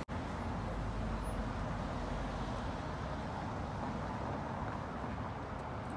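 Steady outdoor background rumble with no distinct event, like distant road traffic or wind on the microphone.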